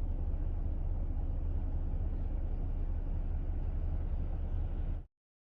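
Steady low rumble of a moving vehicle, cutting off abruptly near the end.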